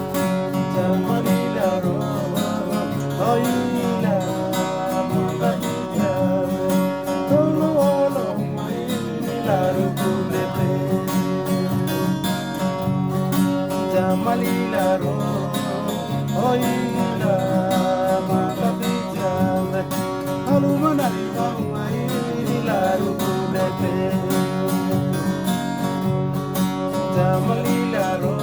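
String band playing: acoustic guitars strummed and plucked in a steady rhythm, with voices singing over them.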